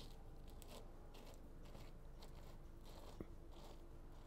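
Faint gritty crunching and scraping of a threaded rod being twisted by hand into injection mortar filling a mesh sieve sleeve, in short repeated strokes, with one sharper click a little past three seconds in.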